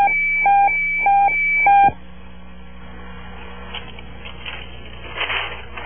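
Four short electronic computer-terminal beeps, evenly spaced about half a second apart, then a low steady hiss.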